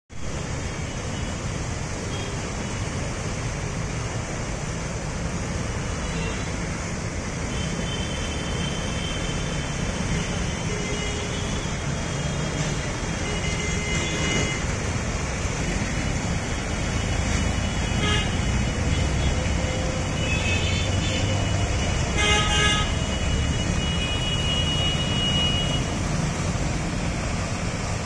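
Water gushing steadily from a burst underground pipe beside the road, mixed with passing traffic: engines, tyres through the flooded lane, and horns honking now and then through the middle and later part.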